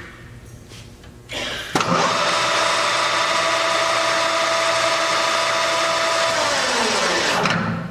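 DoAll Romi 13-5 engine lathe's spindle and headstock gears starting with a click about two seconds in, then running at a steady speed with a steady whine. Near the end the pitch falls as the spindle and chuck slow to a stop.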